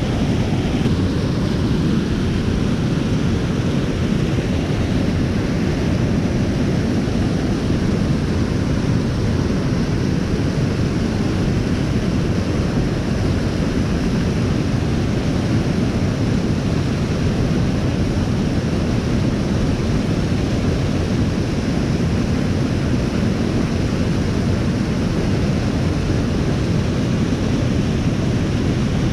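Waterfall rushing: a steady, loud wash of strong falling water, heaviest in the low end, with no break or change.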